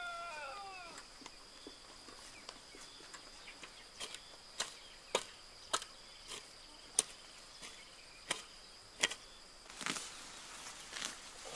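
A rooster's crow trails off in the first second. Then a hand hoe chops into garden soil in a string of sharp strikes, about one every half second from about four to nine seconds, over a steady high insect drone. Near the end, weeds rustle as they are pulled by hand.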